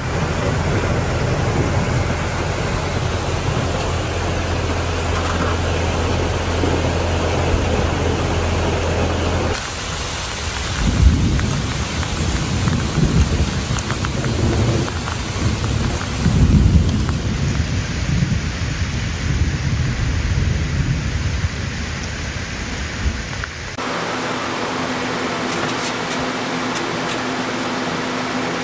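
Thunderstorm: heavy rain falling steadily, with deep rolling thunder rumbles swelling and fading in the middle. Near the end the thunder stops and a steady hum sits under the noise.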